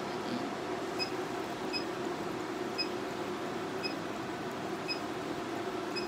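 Harmony XL Pro laser hair-removal machine giving short high beeps, six of them about a second apart, each marking a pulse fired through the handpiece. A steady low hum runs underneath.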